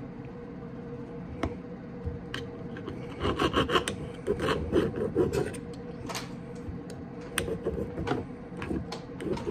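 Knife sawing through crispy air-fried chicken breast and scraping against a ceramic plate, a fork pinning the meat, with scattered clicks of cutlery on the plate. The sawing is loudest about three seconds in and runs for a couple of seconds.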